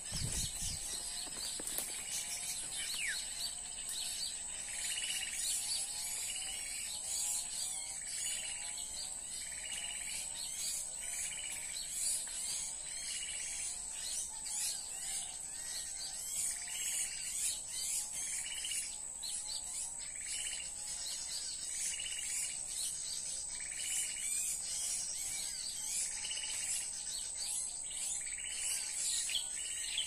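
Bird-lure recording of small-bird calls played from a portable speaker, looping evenly: a quick run of short downslurred notes about twice a second, with higher chirp phrases about every second and a half. A steady high-pitched whine runs beneath.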